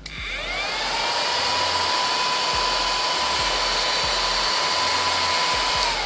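Small battery-powered motor and fan of a mini desk vacuum cleaner switched on and running: a whine that rises over the first second to a steady high pitch with a rushing air hiss, then starts to wind down just before the end as it is switched off.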